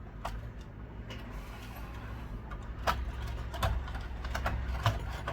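Scattered small clicks and light knocks of a PS5 Slim's motherboard and console parts being handled as the board is lifted out, the sharpest knocks about three and five seconds in, over a low steady hum.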